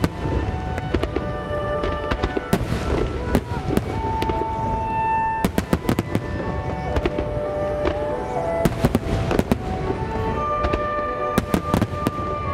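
Many aerial firework shells bursting in quick clusters of sharp bangs about every three seconds, over music with long held notes.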